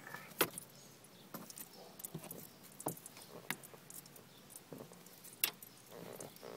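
Fabric seat cover being pulled and tucked by hand, with scattered sharp clinks and clicks from the metal bracelets on the working wrist; the loudest clinks come about half a second in and about five and a half seconds in.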